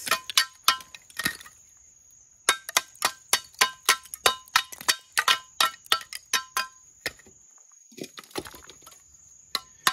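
A mason's trowel chopping red ceramic hollow bricks into pieces: a quick run of sharp clinking strikes, about four a second, each with a brief metallic ring. The strikes pause for about a second shortly after the start and again near the end.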